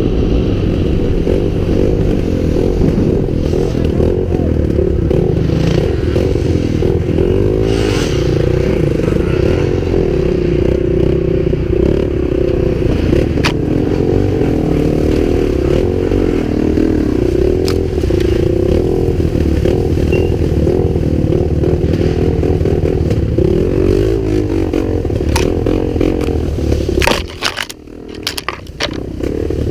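Dirt bike engine running under way, its pitch rising and falling with the throttle, with occasional sharp clicks. Near the end it briefly drops off amid a few clacks, then picks up again.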